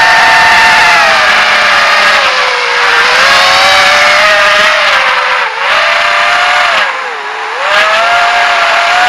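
Racing quadcopter's brushless motors and propellers whining, the pitch rising and falling with throttle; it sags sharply twice, about halfway and again about three-quarters through, as the throttle is chopped, then climbs back.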